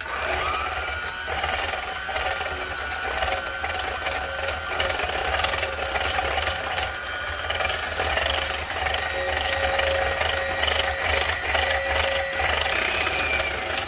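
Electric mixer beating egg whites in a bowl, its motor running with a steady whine and the beaters rattling against the bowl. The whine shifts a little higher about two-thirds of the way through.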